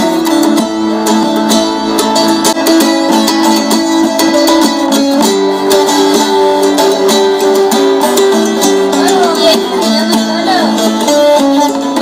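Instrumental passage of a Turkish song on plucked acoustic guitar and saz, played back through a small portable speaker, with almost no deep bass.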